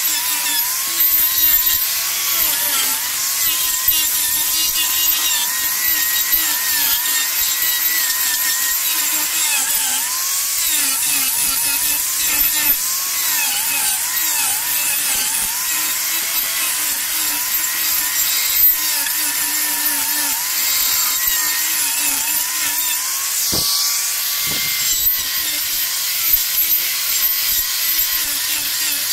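Handheld electric carving grinder cutting into wood: a steady motor whine that keeps dipping and recovering as the bit bites into the wood, over a dense grinding hiss.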